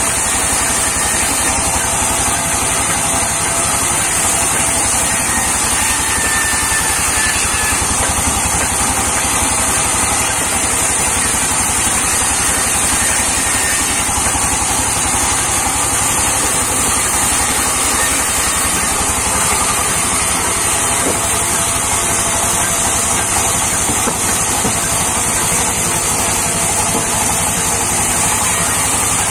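Sawmill band saw running steadily, its blade cutting lengthwise through round logs fed along the table.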